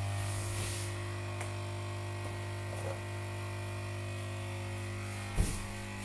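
A steady electrical hum with many even overtones, and a single short thump about five and a half seconds in.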